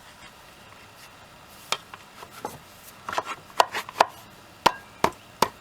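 Sharp knocks and clicks, about ten in all, coming irregularly from a couple of seconds in, as a hydrofoil fin is slid onto and set in place on an outboard motor's cavitation plate.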